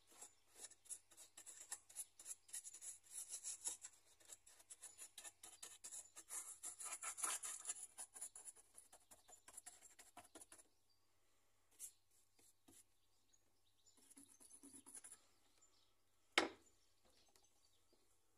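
Paintbrush dabbing and scrubbing paint onto the rough surface of a model mountain, quick scratchy strokes several times a second that stop about ten seconds in. A single sharp click comes near the end.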